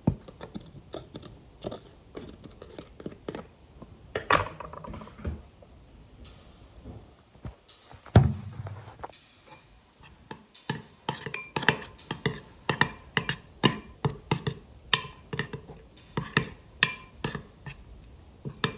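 A metal spoon stirring a thick mixture in a glass bowl, scraping and clinking against the glass. It starts as scattered scrapes and taps, with one heavy thump about eight seconds in, then settles from about ten seconds into a quick, regular stirring rhythm of two to three strokes a second.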